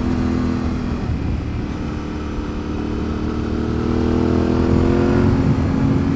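Yamaha Ténéré 700's parallel-twin engine running through a full aftermarket exhaust (Akrapovic header, Scorpion slip-on can) while the bike is ridden. The engine note drops about a second in, then rises steadily for a few seconds as it accelerates, and levels off near the end.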